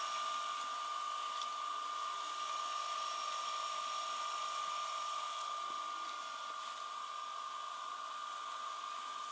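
Philips DVD755VR DVD/VCR combo's VHS deck, an LG-built tape mechanism, rewinding a cassette: a steady high motor whine over a faint hiss, slightly quieter in the last few seconds.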